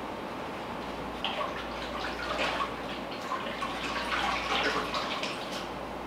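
Water from a kitchen tap splashing in the sink as a sponge is rinsed out, in irregular splashes over a steady background hiss.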